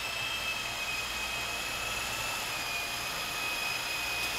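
Art-Tech 400-class coaxial RC helicopter hovering: the steady high-pitched whine of its battery-powered electric motors and twin rotors, dipping slightly in pitch about three seconds in.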